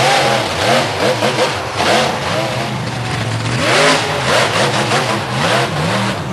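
Monster truck engine revved hard in quick repeated bursts, its pitch rising and falling again and again, loud and rough over a dense exhaust roar.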